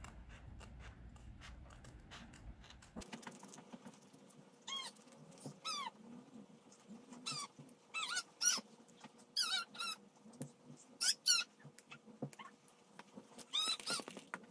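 Short, high-pitched squeaky calls, about a dozen, singly and in pairs, starting about three seconds in and repeating at uneven intervals.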